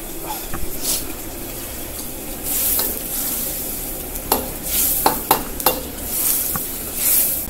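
Cooking utensils clinking and scraping, with several sharp clinks between about four and six seconds in, over a sizzling hiss from the hot pan that swells now and then.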